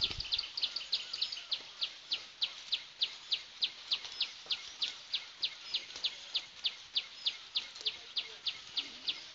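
A bird calling with rapid, evenly repeated high chirps, about three to four a second, each a short downward sweep, without a break.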